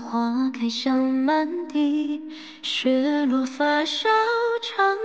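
A woman singing a slow Mandarin ballad with long held notes over musical backing: the drama's ending theme song.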